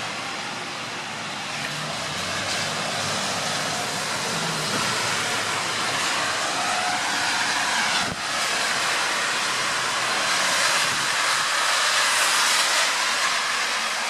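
Strong wind and rain: a steady rushing noise that swells a little near the end.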